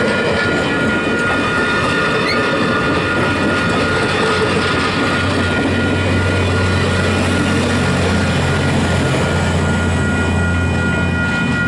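Rocky Mountaineer passenger train passing: steady rolling noise of wheels on rail with several high steady tones. A low steady hum comes in about halfway through.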